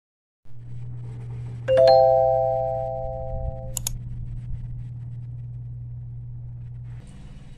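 An electronic chime of a few clear tones sounds together, rings and fades for about two seconds, then cuts off with a click. A steady low hum runs under it.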